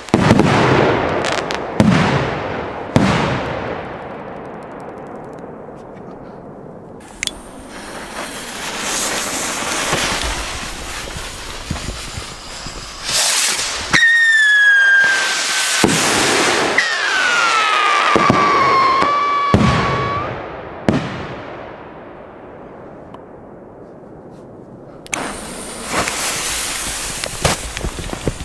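Large firework rockets launching with a rushing hiss and bursting in the air with several sharp bangs. Twice a whistling rocket shrieks for a couple of seconds, its pitch falling.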